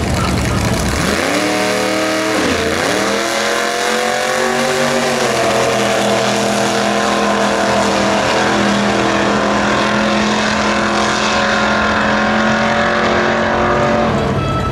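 Ford Falcon gasser's engine launching at full throttle down a drag strip: the pitch climbs, breaks at two gear changes (about 2.5 and 5 seconds in), then holds high in top gear through the pass. The engine cuts off near the end as the driver lifts at the finish line.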